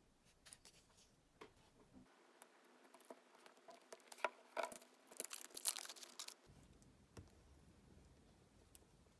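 Blue tape being slit with a utility knife and peeled off a small battery pack: irregular crackling, tearing rustles and small clicks, loudest about four to six seconds in.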